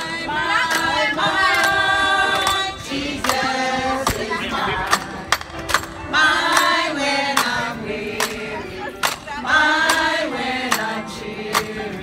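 A group of voices singing together, men and women, with hand clapping keeping the beat.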